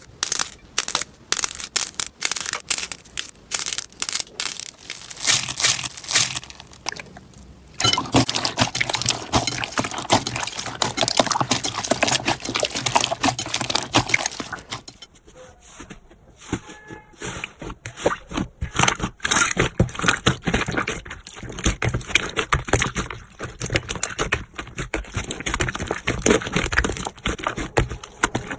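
Slime being squished, poked and stretched by hand, giving dense crackling, popping and clicking. The texture of the sound changes twice, about a quarter and about halfway through.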